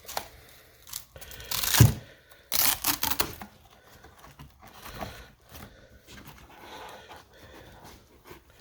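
Rustling and handling noises as a strapped-in drill is freed from its carrying case, with short tearing rasps like a strap being pulled loose. The loudest is a sharp burst about two seconds in, followed by a cluster of rasps, then quieter handling.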